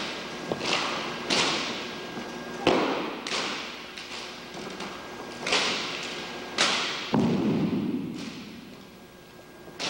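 Drill rifles being worked in a silent drill: about eight sharp slaps and thuds at uneven intervals, from hands striking the rifles and the rifles being moved, each echoing through a large hall.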